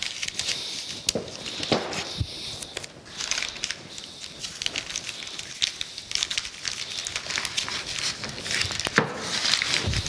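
Brown kraft paper crinkling and rustling as a paper-wrapped rail is handled and blue painter's tape is wound around it, with irregular small crackles and a brief louder rustle near the end.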